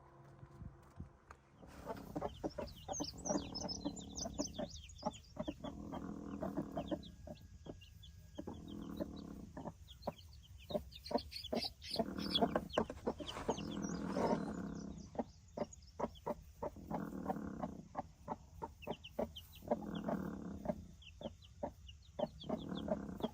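Chickens clucking, with a longer call every couple of seconds and quick high chirps in between.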